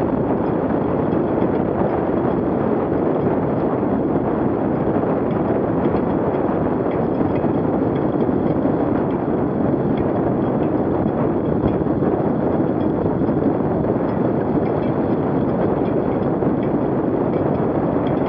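Steady rushing noise of a tyre rolling over a wet, slushy road, mixed with wind on the microphone.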